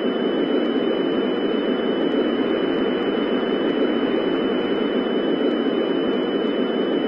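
Steady broadcast static: an even hiss with a thin, constant high tone running through it.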